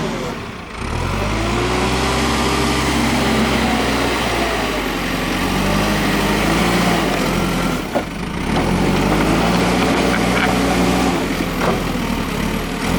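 JCB 3CX backhoe loader's diesel engine running under working load, its pitch rising and falling as the machine works. The sound dips briefly twice, near the start and about eight seconds in.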